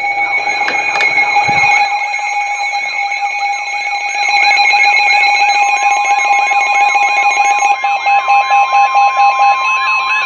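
Several NOAA weather radios sounding their alert alarms at once for a severe thunderstorm warning: steady beeping tones layered with a warbling siren that sweeps up and down about two and a half times a second. A steady warning tone joins about four seconds in, and near the end one alarm changes to rapid pulsed beeps.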